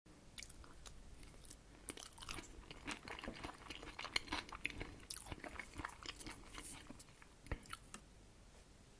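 Close-miked chewing and mouth clicks of someone eating herring-under-a-fur-coat salad, a soft layered salad of herring and grated vegetables. It comes as a busy run of small crackles and smacks that stops about a second before the end.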